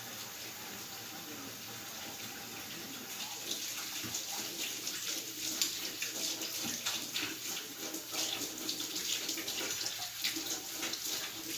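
Water tap running into a sink while hands are washed under the stream, with uneven splashing from about three seconds in.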